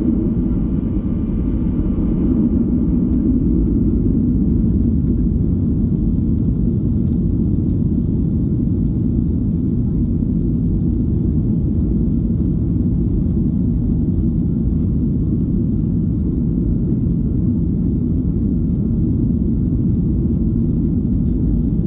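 Steady low rumble of a Boeing 737-800's CFM56 engines and airframe, heard inside the passenger cabin.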